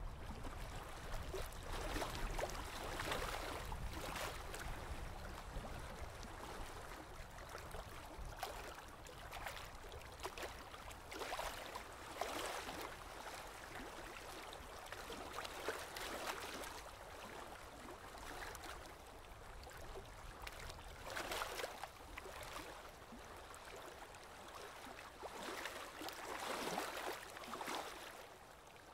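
Aquarium water gurgling and trickling, a steady wash with irregular swells every few seconds.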